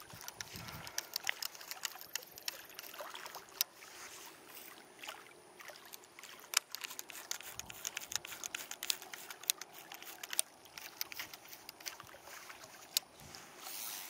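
Small waves lapping against the hull of a fishing boat, with many irregular sharp little splashes and ticks over a steady wash of water.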